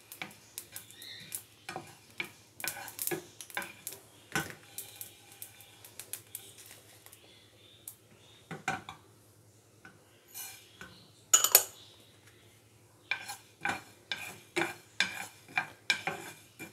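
Wooden spoon scraping and clicking against a nonstick frying pan as dry whole spice seeds are stirred and dry-roasted. The stirring thins out partway through, a louder short rattle comes after that, and then quick, dense stirring resumes near the end.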